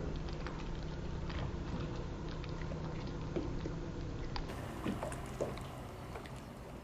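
Water from a perforated soaker hose dripping and pattering irregularly onto a wooden hull, soaking the seams, over a steady low background hum.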